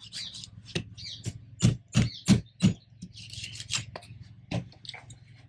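Knife cutting into a whole mahi-mahi on a plastic cutting board: about eight sharp crunching clicks as the blade works through skin and bone, the loudest close together around two seconds in, with scratchy scraping between them over a steady low hum.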